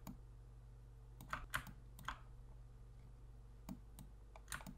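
Computer keyboard keys and mouse buttons clicking in a few short clusters, over a steady low hum.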